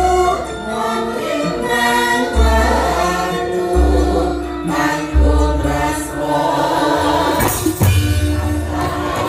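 Javanese gamelan music with sung vocals over deep sustained low notes. Percussion picks up near the end.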